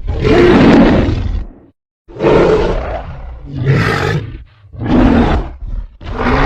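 Custom monster roar sound effect blending Godzilla and Tyrannosaurus rex roars: a loud series of deep, rough roars, about four in quick succession with short breaks between them, and another starting near the end.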